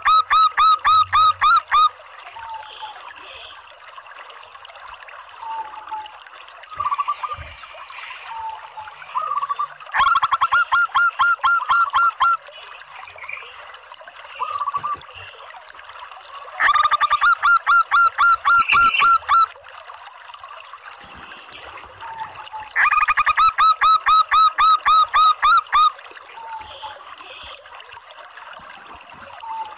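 Female zebra dove (local perkutut) calling in four bursts of rapid staccato notes, each two to three seconds long, with softer single notes between them. It is a call used to draw male doves into cooing.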